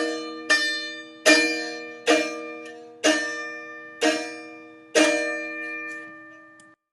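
Background music: slow plucked-string notes struck about once a second, each ringing out and fading. It cuts off abruptly near the end.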